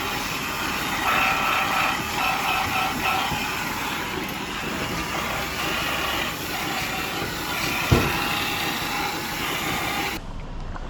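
Steady machinery noise with faint whining tones and one sharp knock about eight seconds in.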